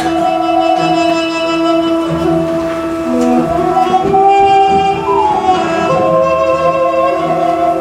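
Music: a flute-like pipe melody that slides between held notes over a steady drone and a pulsing low accompaniment.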